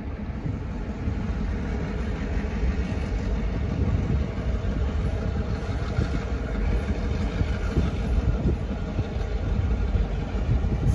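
Diesel locomotive engine running steadily as the passenger train approaches, a constant deep rumble.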